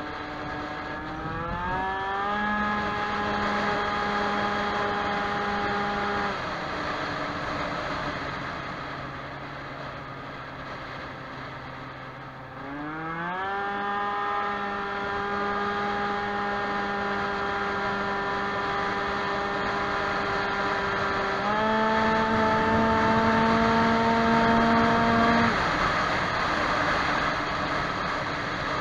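Two-stroke scooter engine with a Stage6 Racing High End cylinder kit, on a Baotian Falcon 50R, accelerating hard. The revs climb quickly to a high pitch and hold steady as the scooter gains speed, drop back about six seconds in, climb again around thirteen seconds, step higher around twenty-one seconds, then fall away near the end. The owner says it is running a bit rich in the heat.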